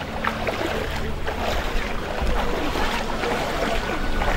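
Feet wading and splashing through shallow floodwater, with wind buffeting the microphone as a steady low rumble.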